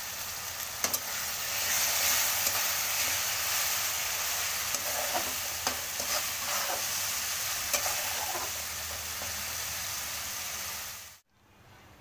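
Masala paste of tomato, green chili and mint-coriander leaves sizzling as it fries in oil in the pot, with scattered clicks of a spoon stirring it. The sizzle cuts off abruptly near the end.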